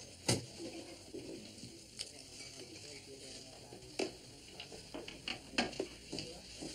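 Pub bar background: scattered knocks and clinks of glassware against a steady low hiss, with one sharper knock just after the start.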